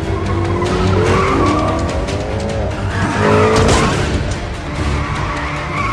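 Car-chase soundtrack: car engines running hard and tyres squealing in sliding, wavering pitches, over a film score. A loud noisy burst comes about three and a half seconds in.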